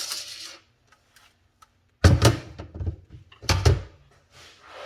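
Two heavy thunks about a second and a half apart, each with a short rattle, from tools and metal pipe being handled and set down on the bench between cuts.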